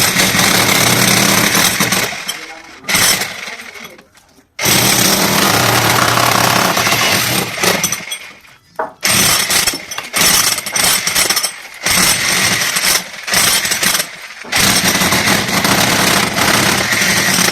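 Jackhammer running loud in long bursts, stopping briefly several times, with the longest pause about four seconds in.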